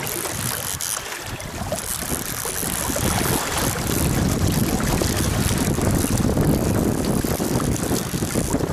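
Wind buffeting the microphone: a rough, fluttering noise that grows louder about three seconds in.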